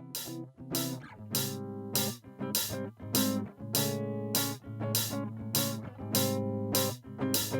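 Guitar music: chords struck on a guitar in a steady rhythm, a little under two strokes a second, each chord ringing on.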